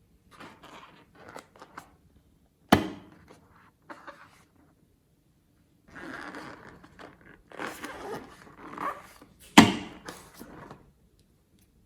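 Slime being squeezed and worked by hand, with sticky crackles in short bursts and two sharp pops about seven seconds apart.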